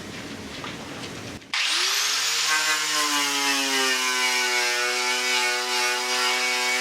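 Quiet scraping, then about a second and a half in an electric power tool is switched on. Its motor whine rises quickly to speed and then runs steadily at one pitch.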